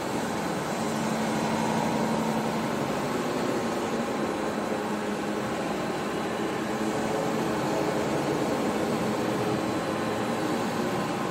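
Steady workshop background noise: a constant machine hum and hiss with a few faint steady tones, no knocks or breaks.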